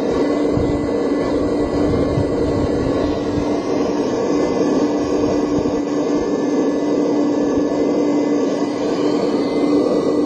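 Hydraulic pump of a model RC excavator running steadily with a constant low hum while the boom and bucket dig into sand.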